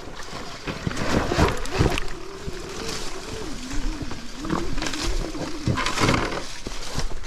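Sur-Ron Ultra Bee electric dirt bike riding off-road. Its motor whine rises and falls with the throttle, broken by rough bursts of tyre, ground and wind noise.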